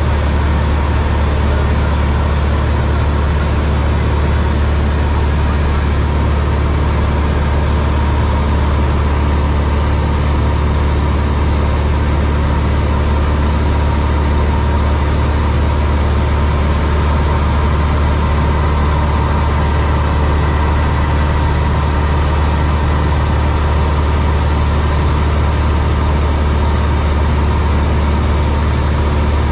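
Steady drone of a light aircraft's single piston engine and propeller, heard inside the cockpit in flight: a deep, even hum with a wash of hiss over it and no change in pitch or level.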